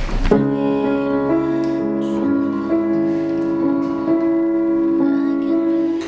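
Grand piano playing a slow passage of held chords that change about once a second. It comes in about a third of a second in.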